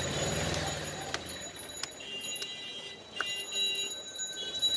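A large knife scraping scales off a big catla fish on a wooden block, with a few sharp knocks. Steady high bell-like ringing tones sound through the middle and near the end.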